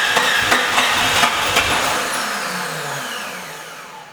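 Jeep Cherokee XJ engine cranking on the starter and sputtering with sharp pops, then winding down with a falling pitch and fading out near the end. It is the first sign of spark after a distributor swap, but the engine does not keep running.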